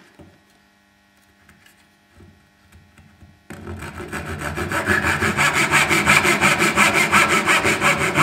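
Dovetail saw cutting into the end of a hardwood drawer front, marking out the socket walls of a lapped dovetail. After a few faint seconds the sawing starts suddenly, about three and a half seconds in, with quick, even strokes.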